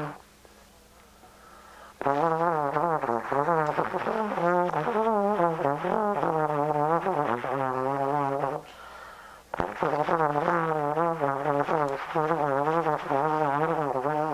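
Solo trombone playing free improvisation, its pitch wavering up and down in long phrases. It comes in about two seconds in, breaks off briefly about two-thirds through, and resumes.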